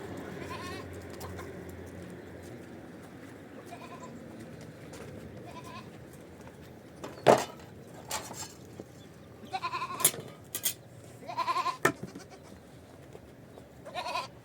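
Goats bleating several times, the calls clustering in the second half, with a few sharp knocks in between, the loudest about seven seconds in.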